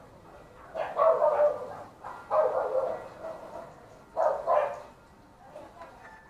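A dog barking in three short bouts, each about a second long and a second or two apart.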